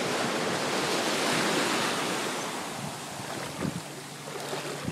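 Ocean wave coming in and washing up the beach. The surf's hiss swells to a peak about a second and a half in, then fades away.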